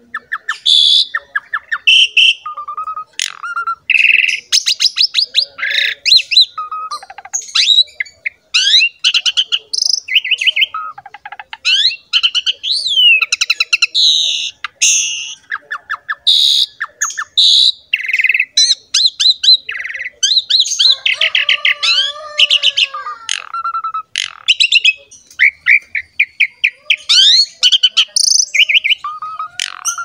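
Asian pied starling (jalak suren) singing in full voice: a long, varied run of rising and falling whistles, fast chattering rattles and harsh squawky notes with barely a pause.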